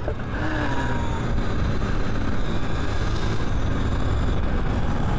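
Steady rushing wind on the microphone and tyres rolling over dirt as a Talaria Sting R MX4 electric dirt bike is ridden along a trail.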